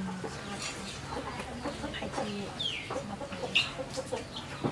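Chickens clucking: a run of short clucks in the second half, and a brief falling high-pitched call a little past the middle.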